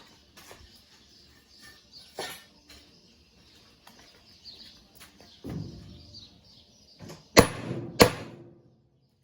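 Scattered small clicks and knocks from parts and tools during the disassembly of a washing machine, then a dull thud and two loud, sharp strikes about half a second apart near the end, each with a short ring.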